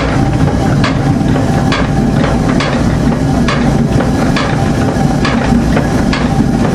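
Wooden tower-windmill machinery running under load: the spindle, gearing and millstones give a steady low rumble with a regular knock a little faster than once a second, as the mill grinds wheat.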